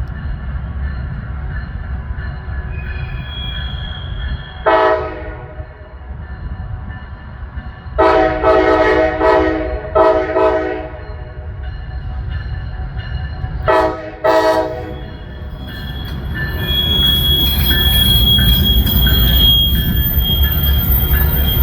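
Norfolk Southern locomotive 7025's air horn sounding five blasts: a short one, then a long one of about two seconds running straight into another, then two short ones in quick succession, over the low rumble of the train. After the horn, a steady high wheel squeal builds as the train rolls by.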